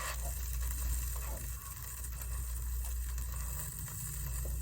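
Steady low electrical hum under a faint even hiss, with a faint click or two.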